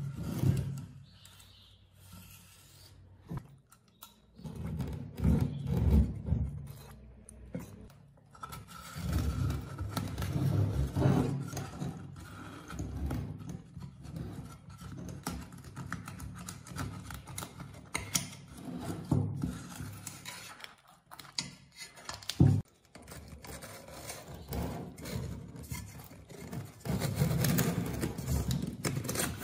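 Irregular scraping and rubbing of hand tools working on speaker parts, in uneven strokes, with one sharp knock about three-quarters of the way through.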